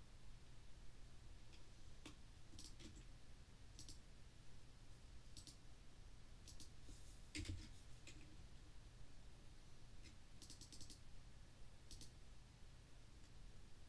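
Faint computer mouse clicks, scattered singly and in a few quick runs, over a faint steady low hum.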